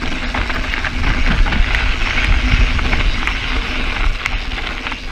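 Mountain bike rolling over a loose gravel trail: the tyres crunch, the bike rattles with scattered sharp clicks, and wind rumbles on the camera's microphone.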